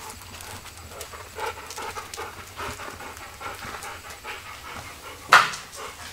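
A dog panting in quick, even breaths, two or three a second. A single sharp knock stands out about five seconds in.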